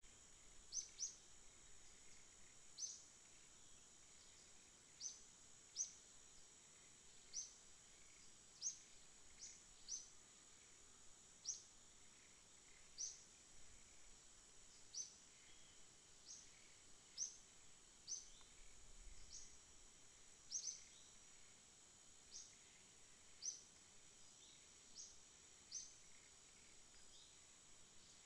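A bird repeating short, high, downward-slurred chirps every second or two, often in quick pairs, over a faint steady high-pitched hiss.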